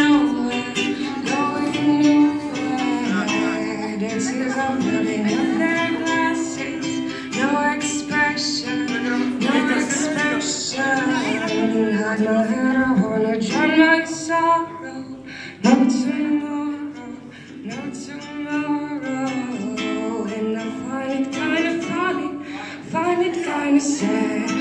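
A woman singing a song live, accompanying herself on a strummed ukulele, through a microphone and PA.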